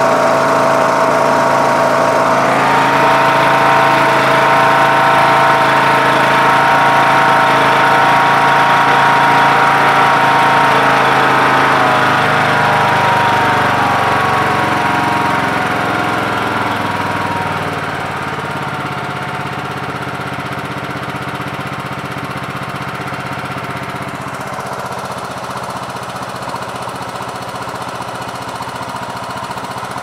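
Briggs & Stratton Intek 20 hp lawn tractor engine running at high throttle on a freshly fitted original Nikki carburetor, then slowing from about twelve seconds in, its pitch falling to a steady lower speed. It runs evenly without surging, which shows that the carburetor is fuelling the engine properly.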